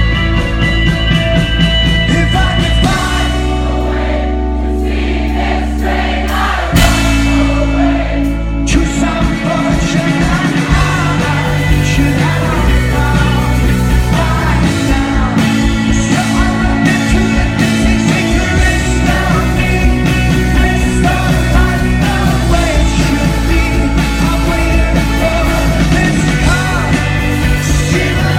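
Live rock band playing with a singer over it: drums, bass and guitars.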